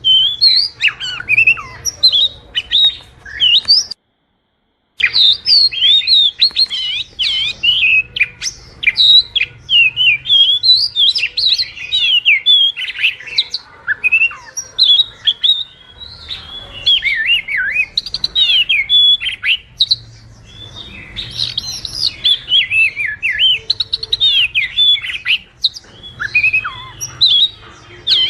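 Oriental magpie-robin (kacer) singing a rapid, varied stream of loud whistles and chirps, with a full break of about a second around four seconds in.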